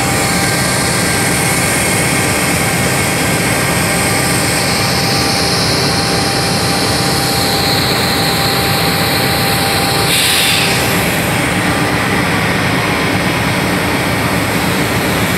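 Union Pacific diesel freight locomotives running under power as they move past close by, a loud, steady engine drone. A brief hiss comes through about ten seconds in.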